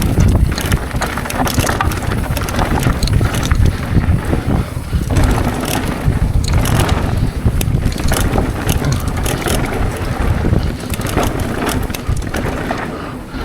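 Mountain bike riding fast down a rough dirt trail: wind buffeting the microphone over a constant low rumble of tyres on dirt and rock, with many sharp clacks and rattles as the bike hits bumps.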